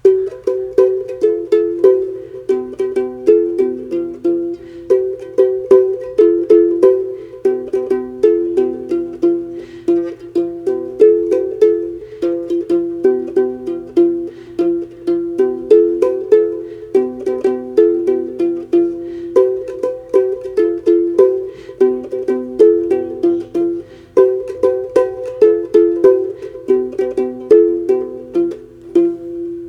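Ugandan adungu bow harp plucked solo, a repeating, lilting pattern of quick notes in a narrow mid range with a lower bass note coming back every couple of seconds, the last note left ringing.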